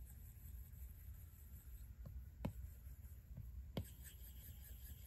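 Apple Pencil tip stroking across an iPad's glass screen, faint, with a few light taps about two to four seconds in.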